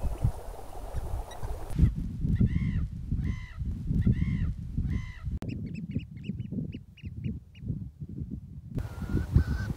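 Wind buffeting the microphone with birds calling: first faint short calls, then four drawn-out calls, then a quick run of short, high piping notes. The recording cuts abruptly between these parts.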